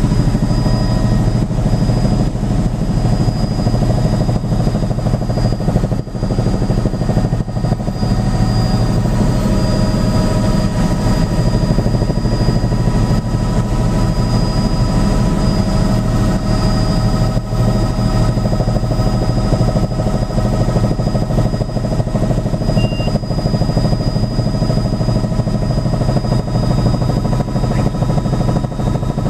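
Helicopter cabin noise in flight: the steady drone of the rotor and engine, with a thin high whine above it, heard from inside the cabin.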